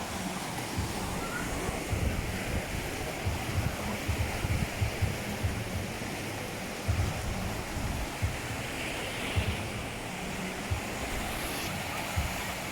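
Water in a man-made beach pool washing and splashing steadily, with wind rumbling on the microphone.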